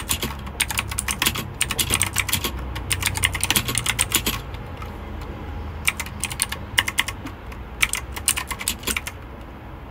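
Typing on a mechanical keyboard fitted with novelty Christmas keycaps: quick runs of clicking keystrokes, a brief lull about halfway, then shorter bursts that thin out near the end.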